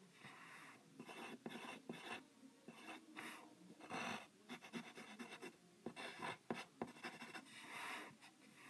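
Faint pencil scratching on paper in quick, irregular strokes as a figure is sketched.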